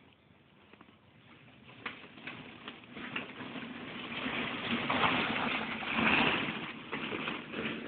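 Plastic ball-pit balls clattering and rustling as a pet moves among them: scattered clicks at first, building to a dense, loud jostling of balls around the middle before easing near the end.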